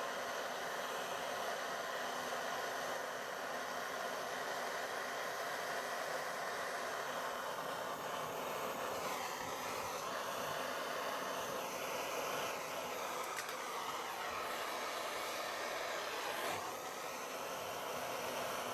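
Gas blow lamp flame hissing steadily as it heats a joint for silver soldering, its tone wavering and sweeping between about nine and seventeen seconds in.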